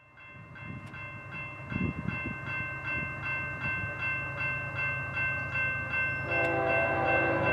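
Grade-crossing bell dinging steadily about three times a second while BNSF freight diesel locomotives approach, their low engine rumble growing louder. About six seconds in, the lead locomotive's multi-chime air horn starts a held blast.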